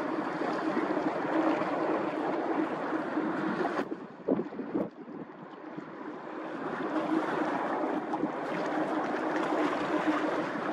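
Tokara-class patrol vessel Chikugo, driven by three waterjets, running past at high speed: a steady machinery hum under the rush of its wake, with wind on the microphone. The sound thins out about four seconds in, then swells back up.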